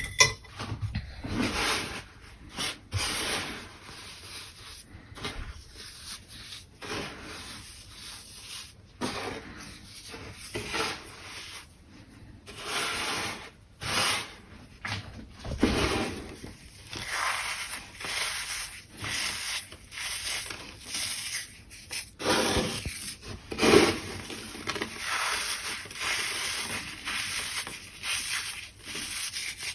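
Dry baking soda worked by hand: an irregular run of gritty rubbing and crunching strokes, with a sharp crack at the very start and another about 24 seconds in.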